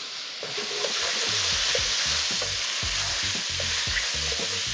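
Chicken, carrot and cabbage sizzling as they are stir-fried in a hot wok; the sizzle grows louder about a second in. Irregular knocks and scrapes come from the food being stirred and tossed around the pan.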